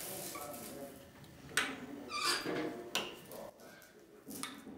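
Metal fastenings on a tile kiln's door being worked by hand: a few sharp metallic clacks, with a short scraping squeak about two seconds in.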